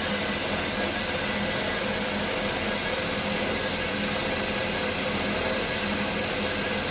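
HEM 1200 LAS automatic bandsaw running steadily: an even machine hum with a hiss that does not change.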